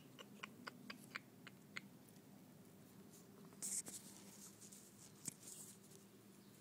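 A run of light, quick clicks, about four a second, for the first two seconds, then a short scratchy rustle near the middle and one more click; otherwise faint.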